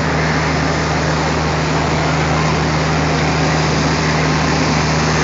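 Diesel locomotive engine running steadily with a low, even hum as the locomotive rolls slowly up to the coaches for coupling.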